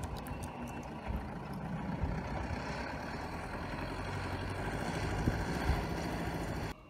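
Steady low vehicle rumble that grows slightly louder toward the end, then cuts off abruptly just before the end.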